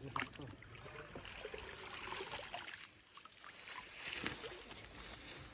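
Pond water sloshing and splashing, with a sharp splash just after the start and a louder one about four seconds in.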